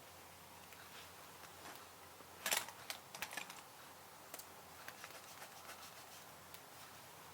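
Computer keyboard typing: a few irregular keystrokes, with a louder cluster of key clicks about two and a half seconds in and sparser, fainter clicks after it.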